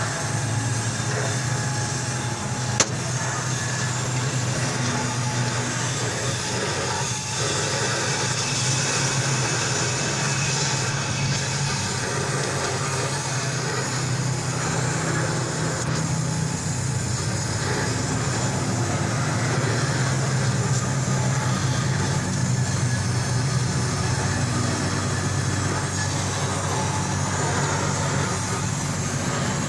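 Gas welding torch flame hissing steadily while a car's exhaust silencer is welded, over a constant low mechanical hum. A single sharp click about three seconds in.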